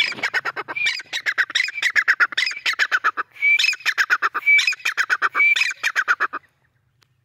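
Grey francolin calling: loud, shrill phrases of rapid notes, each opening with a short rising whistle, repeated about once a second. The calling stops about six and a half seconds in.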